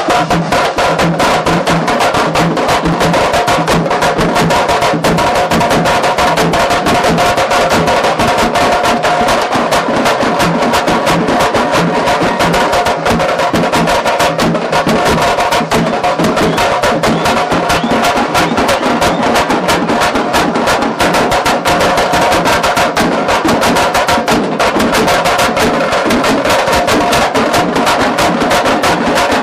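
Loud music track with fast, dense percussion running steadily throughout.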